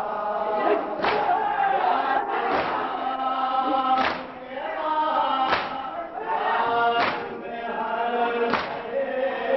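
A men's group chanting a noha in unison, with a loud unison stroke of chest-beating (matam) about every one and a half seconds keeping the beat.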